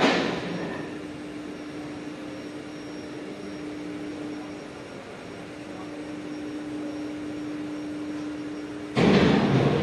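Workshop machinery: a sharp knock that rings away briefly, then a steady machine hum with one constant low tone. About nine seconds in, a louder, harsher machine noise starts.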